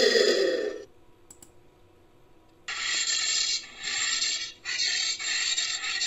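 Made-up creature sound effect for a northern tamandua, built from anteater recordings. A loud grunt-like call, its pitch rising then falling, ends about a second in. After a pause of about two seconds comes a harsh, noisy rasp in several bursts with short breaks.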